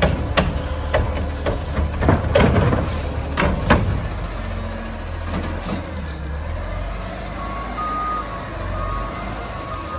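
Front-loading garbage truck's diesel engine running while the arm on its front can tips a yard-waste cart, with a quick series of metal clanks and bangs in the first four seconds as the cart is shaken out and set down. The engine then runs steadily, and an intermittent warning beeper starts about seven and a half seconds in.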